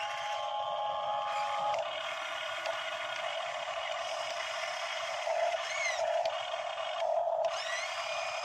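Motors of a radio-controlled Hitachi EX60 model excavator whining steadily as it raises its boom and works its bucket, with a few short high chirps near the end.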